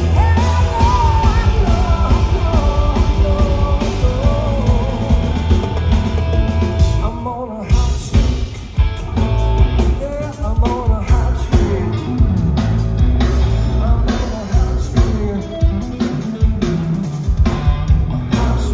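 A rock power trio playing live: male lead vocal over electric guitar, bass guitar and drums. A short break in the playing comes about seven seconds in, after which the drums come more to the fore.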